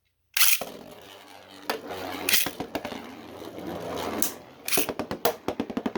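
3D-printed Beyblade spinning tops launched into a plastic stadium about a third of a second in, then spinning and scraping against the bowl with sharp clacks as they collide, the hits coming thick and fast near the end.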